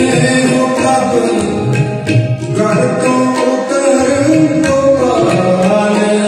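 Sikh kirtan: harmonium playing a sustained melody over a steady tabla rhythm.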